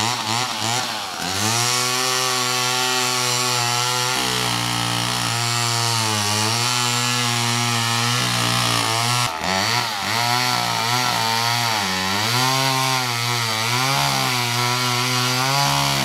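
Petrol chainsaw cutting into a tree trunk near full throttle, its engine note sagging and recovering over and over as the chain bites into the wood, with a brief dip about nine seconds in. The chain is worn out, in the cutter's words "the blades just had it", so the cut goes slowly.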